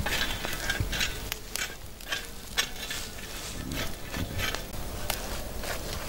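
Metal kebab skewers loaded with raw meat being handled and set into the soil beside a charcoal pit: irregular light clicks, scrapes and crackles.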